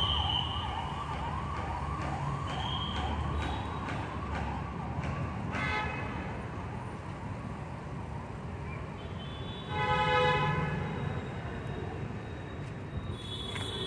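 Police car siren in a fast yelping warble, about two to three rising-falling sweeps a second, fading away over the first several seconds as the car passes. About ten seconds in, a separate loud, steady tone sounds for about a second.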